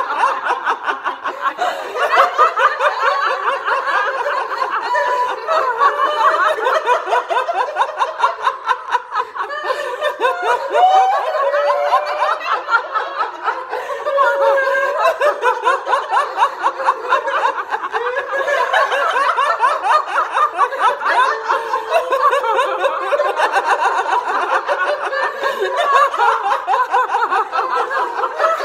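A group of women laughing together without a break, several voices overlapping in quick rhythmic ha-ha pulses: deliberate, sustained laughter-yoga laughter.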